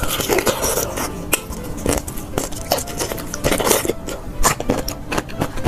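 Close-miked biting and crunchy chewing of pickled sweet garlic cloves, a dense irregular crackle of many sharp clicks, with rustling as more cloves are pulled off the bulb.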